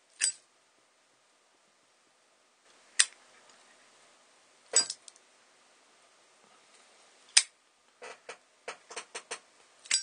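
Zippo lighter worked through a flip trick: sharp metallic clicks of the hinged lid snapping and the flint wheel being struck, the loudest about 3 and 7.5 seconds in, then a quick run of lighter clicks near the end.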